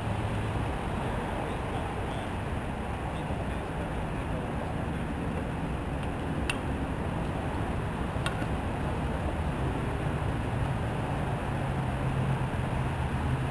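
Steady outdoor rumble of traffic, with a low engine drone growing stronger over the last few seconds. Two sharp clicks come in the middle, a little under two seconds apart.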